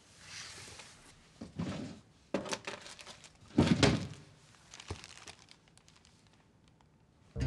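Papers and plastic evidence bags being handled at a desk: rustling and crinkling, with a dull thunk about three and a half seconds in, the loudest sound.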